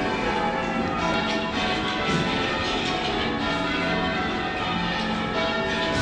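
Church ring of eight bells (John Warner, 1858; tenor 15¾ cwt in F) rung full circle in change ringing, the strokes following one another in a continuous, overlapping stream. Heard from the ringing chamber below the bells.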